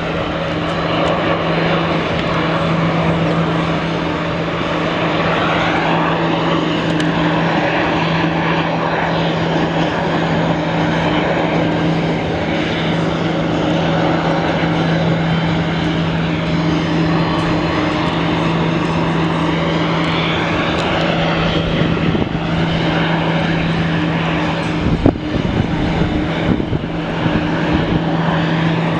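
Boeing 747-400 freighter's jet engines running loud and steady, with a whine that slowly bends in pitch a couple of times. A few low thumps come near the end.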